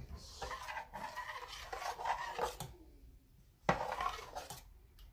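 A spoon stirring codfish fritter batter in a stainless steel bowl, scraping and clinking against the metal in two spells with a short pause in the middle.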